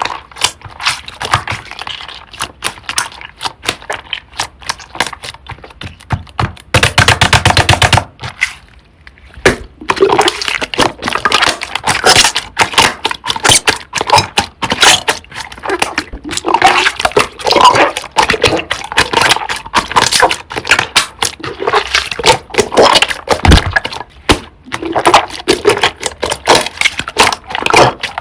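Thick, creamy slime being squeezed and stretched by hand, with dense crackling and popping of trapped air. About seven seconds in comes a fast, even run of pops lasting about a second.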